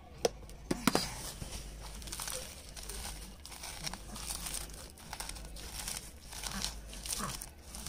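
Dried red chillies being crushed and rubbed by hand on a plate, a repeated dry crinkling and crackling as the brittle pods break up, with a few sharp clicks in the first second.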